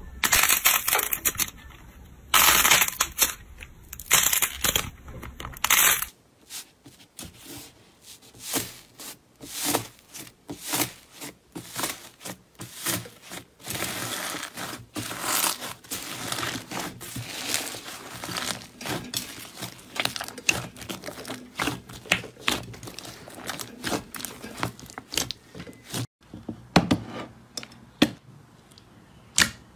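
Hands squeezing, kneading and pressing slime: a run of sticky squelches, crackles and small pops, louder in bursts over the first six seconds. Foam beads mixed into one of the slimes crunch as it is kneaded.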